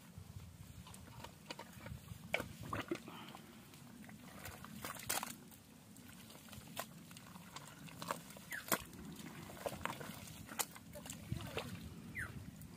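Thick wet mud squelching under a hand and arm digging deep into a mud hole, with irregular sharp sucking pops and clicks as the mud is worked.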